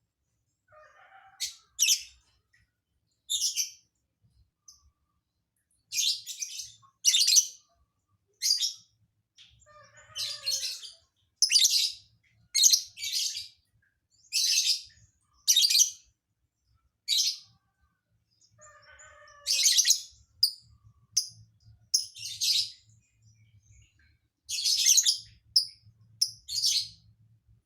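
Lovebird singing its learned song: a string of short, sharp, high chirps, irregularly spaced one or two a second, with a few softer, lower warbling phrases between them.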